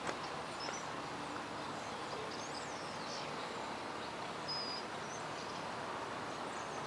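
Steady outdoor background hiss with a few faint, high bird chirps scattered through it.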